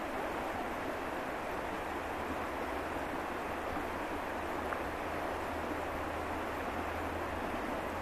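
Shallow river water rushing steadily over stones.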